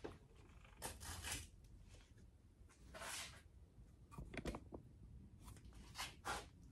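Faint handling noises at a workbench: about five short rustles and scrapes a second or two apart, as the honing drill is set down and a flashlight picked up.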